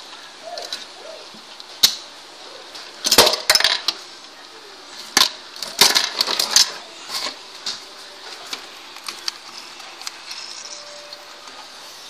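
Plastic Rubik's cube being turned by hand: irregular sharp clicks and short clattering runs of clacks as the layers snap round, the busiest runs about three seconds in and again around six seconds in.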